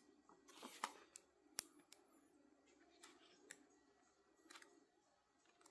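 Faint rustles and crisp ticks of the glossy pages of a printed instruction manual being turned by hand, several separate page flips over low room tone.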